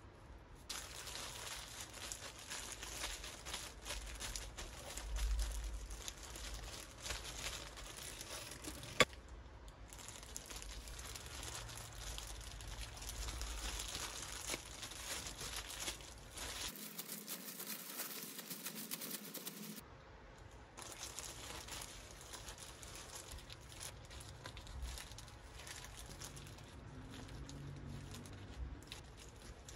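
Kitchen handling sounds of making cucumber kimbap: a spoon scraping rice onto a nori sheet, and disposable plastic gloves crinkling as the roll is shaped and rolled, with one sharp click about nine seconds in. Near the end a knife slices crisply through the cucumber roll.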